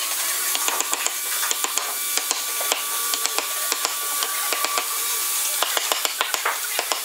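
Wooden mallet striking a steel carving chisel driven into hardwood, in quick uneven taps, several a second.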